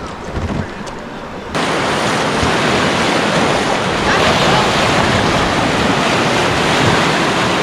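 River rapids: moving water rushing steadily, heard as an even hiss. It jumps abruptly louder about a second and a half in and grows a little louder again around four seconds in.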